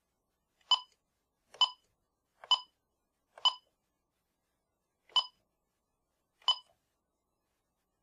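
Bosch B Series intrusion panel keypad beeping as its buttons are pressed: six short identical key-press beeps, four about a second apart, then two more with longer gaps.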